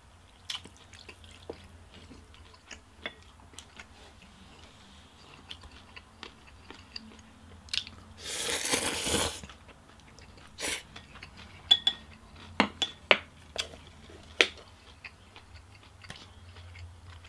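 Close-miked eating sounds: soft chewing and small wet mouth clicks, with one long, loud slurp of chicken pho rice noodles about eight seconds in. It is followed by a run of sharp smacking clicks.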